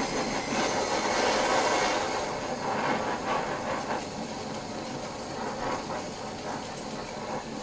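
Handheld gas-cartridge blowtorch burning with a steady rushing hiss as its flame is played over wood; the flame noise drops quieter about four seconds in.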